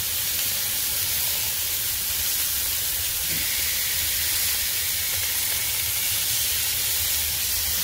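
Beef burger patties sizzling steadily on a hot Blackstone 22-inch flat-top steel griddle as they are turned over.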